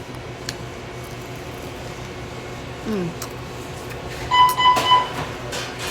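A single steady electronic beep lasting under a second, over a low steady hum, with a short falling vocal sound a little before it.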